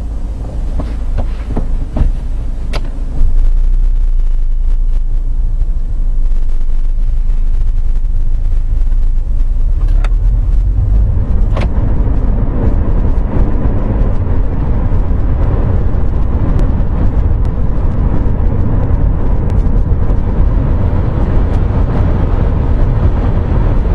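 Engine and road noise heard from inside a Mercedes car's cabin as it pulls away and drives: a steady low rumble that steps up about three seconds in and thickens with tyre noise from about twelve seconds on, with a few sharp clicks.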